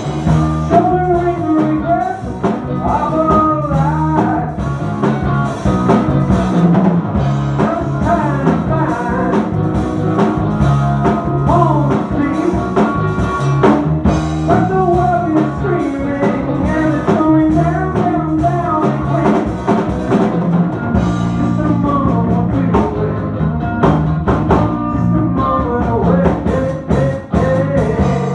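Live rock band playing: electric guitar, electric bass and drum kit, with a singer.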